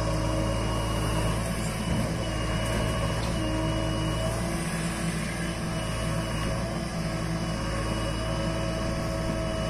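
JCB 3DX backhoe loader's diesel engine running steadily as the backhoe arm works, dumping soil into a tipper truck and swinging back to dig.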